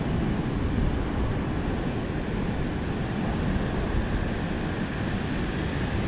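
Steady wash of ocean surf on a beach, with wind rumbling on the microphone.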